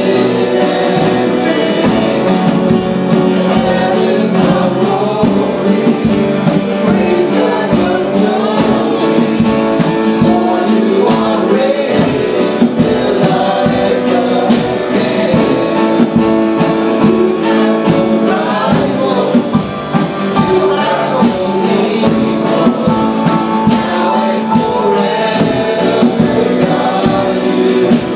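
Live gospel worship music: a congregation or worship team singing with guitar-led band accompaniment and a steady beat.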